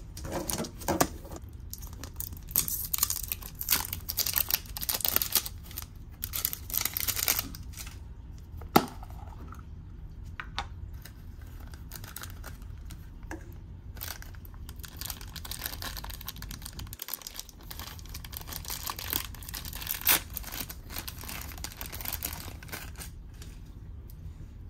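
A yellow plastic toy capsule is handled and snapped open, with one sharp click about nine seconds in, followed by a clear plastic bag crinkling and tearing as a small keychain figure is unwrapped.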